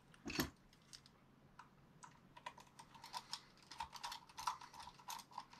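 Light irregular clicking and tapping of a small screw and tools being handled while fitting the screw into a plastic RC truck part. There is a single knock just after the start, and the clicks come thick and fast from about two seconds in.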